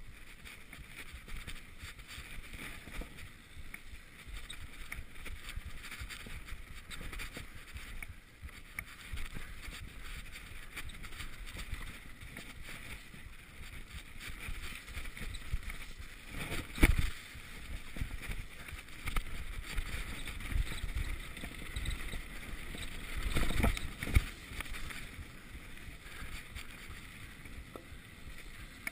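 Mountain bike riding fast down a dirt singletrack: a steady rush of tyres on dirt and wind on the microphone, with bike rattle throughout. Two sharp knocks stand out, a little past halfway and again about seven seconds later.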